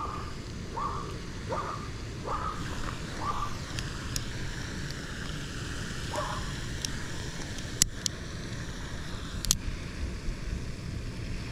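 Wind buffeting the microphone, with a few faint short chirps in the first half. Near the end come two sharp metallic clicks about a second and a half apart as a folding stainless multitool is opened out into pliers to unhook a bass.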